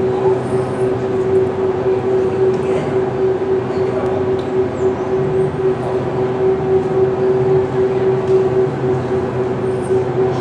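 Steady machine hum holding one strong, constant tone with fainter lower tones beneath it.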